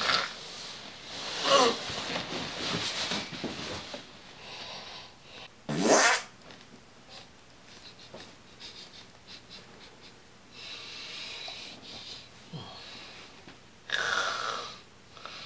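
Exaggerated comic snoring and snorting from a man asleep: several long, noisy breaths, some falling in pitch, the loudest about six seconds in.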